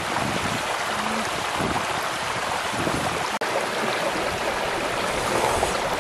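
Shallow stream running over rocks, a steady rushing and trickling of water that cuts out for an instant a little past halfway.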